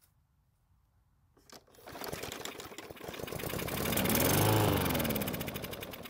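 A Yard Machines push mower's small engine, just primed with fuel, starts about two seconds in, speeds up, then slows and dies out near the end. It stalls on its own after the priming fuel is used up, a sign of a fuel-system problem.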